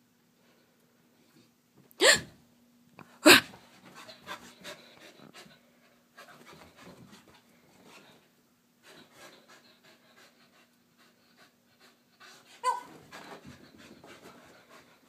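Soft-coated wheaten terrier panting in quick rhythmic runs as she races around, with two loud sharp sounds about two and three seconds in and another near the end.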